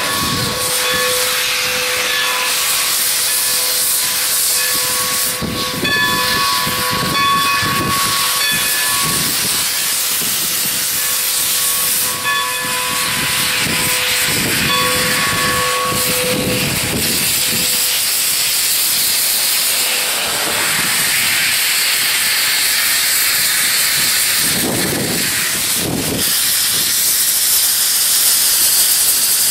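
Steam locomotive No. 40, a Baldwin 4-6-0, hissing loudly as steam jets from its open cylinder cocks while it rolls slowly, with low chuffs every few seconds. A steady high tone sounds on and off through the first half.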